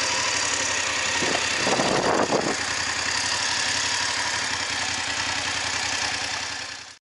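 BMW F-series GS adventure motorcycle's parallel-twin engine running as the bike rides slowly over a dirt track, heard with a steady hiss. There is a brief louder surge about a second and a half in, and the sound stops abruptly near the end.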